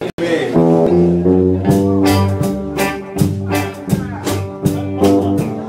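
Live country band playing: guitar and bass holding long chords, with drums coming in on a steady beat about a second and a half in.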